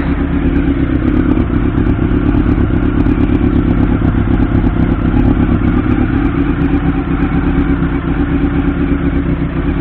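Honda CB-1's 400cc inline-four engine idling steadily.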